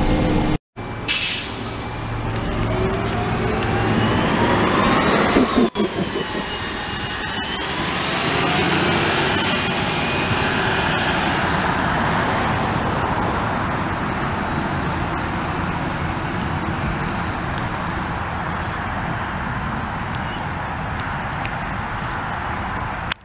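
Gillig low-floor CNG transit bus, with a Cummins Westport ISL-G engine and Voith D864.5 transmission, pulling away from a stop: a short hiss of air about a second in, then a rising whine as it accelerates, dropping once at a gear change near the middle and rising again. The whine fades as the bus drives off, leaving a steady street hum.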